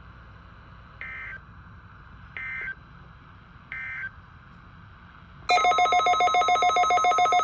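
Three short bursts of Emergency Alert System SAME data, the end-of-message code closing the previous warning. About five and a half seconds in, a loud, rapidly pulsing electronic alert tone starts, signalling the next alert, and keeps going.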